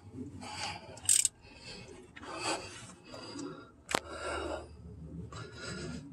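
Stretch-fit AC belt being worked by hand onto the AC compressor pulley: a series of short rasping, rubbing sounds as the belt slides over, with a sharp click just before four seconds in.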